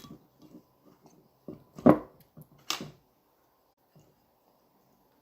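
A dog making a few short vocal sounds, the loudest just before two seconds in and another a little before three seconds.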